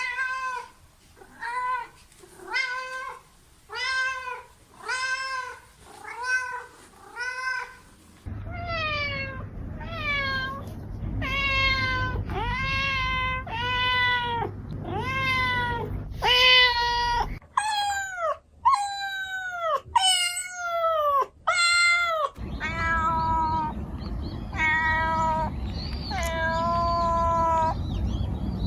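Domestic cat meowing again and again, in several separate recordings one after another. First comes a run of about eight short meows, roughly one a second; then longer, drawn-out meows, some sliding down in pitch, with a low background rumble under parts of them.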